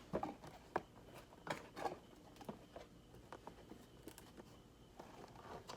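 A parcel being opened by hand: irregular clicks, scrapes and rustles of packaging, with some tearing or cutting.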